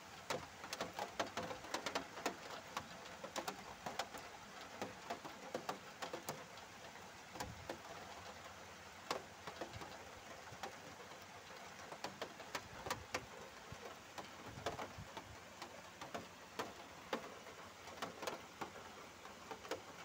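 Steady rain falling, with many irregular sharp ticks of drops striking a hard surface close by.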